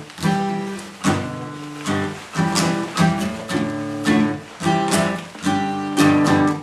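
Acoustic guitar strumming chords in a steady rhythm, about two strums a second.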